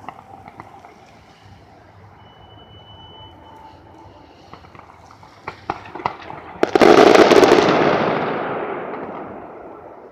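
Fireworks display: a few scattered pops, then sharp bangs, then a loud burst about two-thirds of the way through that dies away slowly over about three seconds.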